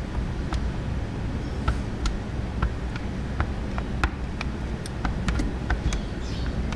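Scattered light clicks and ticks of a hand tool and plastic trim being worked around the rear-view mirror mount on the windshield, over a steady low background hum.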